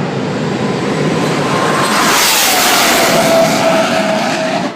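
Jet engine of the Fireforce 3 jet car going past at top speed. A loud rushing jet noise with a whine that falls in pitch about two seconds in as the car passes.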